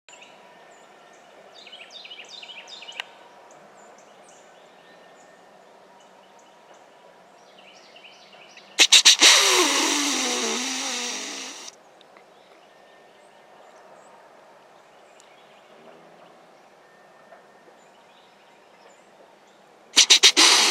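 A deer snort-wheeze imitated by a hunter, made twice, about nine seconds in and again near the end. Each is three or four quick, sharp snorts followed by a long hissing wheeze that fades away over about three seconds: the aggressive challenge call of a dominant buck. Faint bird chirps come about two seconds in.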